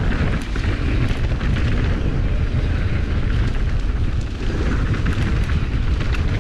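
Mountain bike rolling fast down a dirt trail, heard through an on-bike camera microphone: a loud, steady rumble of wind buffeting and tyre noise, with a few light clicks and rattles from the bike.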